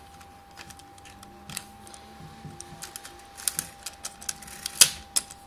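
Mamiya 645 Super medium format film camera clicking mechanically as it is worked, with one loud snap near the end: the shutter and mirror firing.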